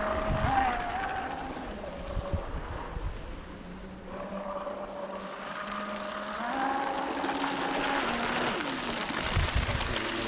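Scratch-built RC speed boat's 8S brushless electric motor, driving a surface prop and running at speed, makes a steady whine with a hiss of water spray. The sound fades as the boat moves away, then rises in pitch and level about six and a half seconds in as it speeds back.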